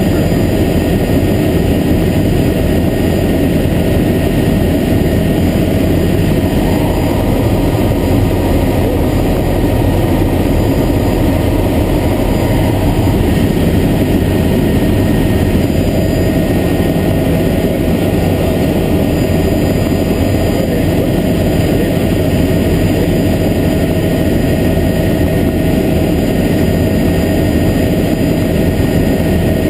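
Helicopter in steady flight heard from inside its cabin: constant engine and rotor noise, even in level throughout.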